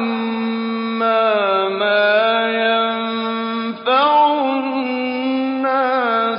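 A male reciter chanting the Quran in a slow, melodic style, holding long drawn-out notes with ornamented turns of pitch. He breaks off briefly about four seconds in, then takes up a new phrase.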